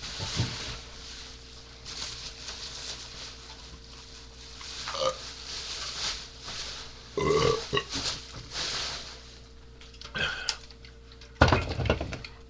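A man belching several times after chugging beer. The belches come in short bursts, and the loudest and deepest one comes near the end.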